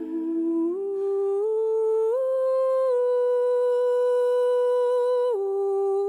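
Background music: a single sustained, hum-like melody line that steps up in pitch three times, holds one long note, then drops back down about five seconds in.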